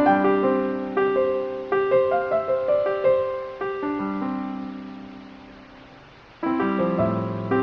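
Background piano music: a slow melody with sustained notes that fades, then a new chord is struck near the end.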